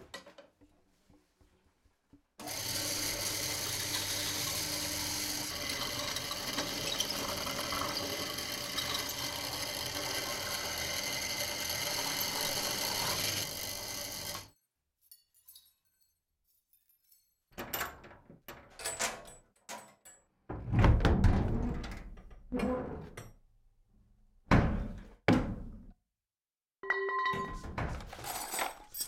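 Workshop sounds. A steady, dense whirr lasts about twelve seconds and cuts off. After a pause comes a series of separate knocks and thunks, some with a short ringing tone.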